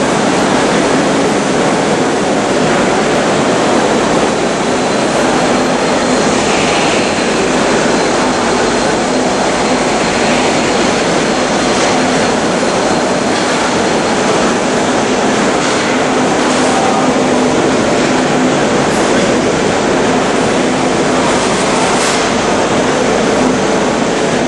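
Automatic corner weld seam finishing machine running: a loud, steady mechanical noise with a low hum under it.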